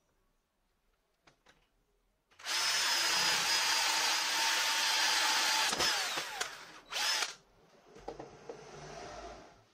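Electric drill boring a Forstner bit into plywood. It starts suddenly a couple of seconds in and runs steadily at speed, then winds down with a falling whine. It gives one more short burst, and a quieter sound follows.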